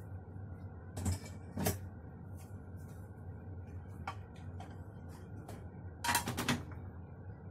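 Kitchen things being handled on a counter: two short knocks about a second in, a lighter tap about four seconds in, and a brief clatter of several knocks about six seconds in, over a steady low hum.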